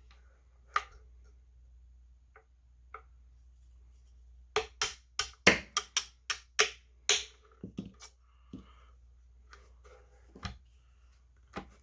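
Shotgun parts being handled and worked loose during disassembly: scattered clicks and taps, with a quick run of about eight sharp knocks between about four and a half and seven seconds in.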